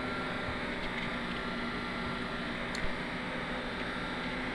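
Room tone: a steady hiss with a faint low hum, and a single small click near the middle.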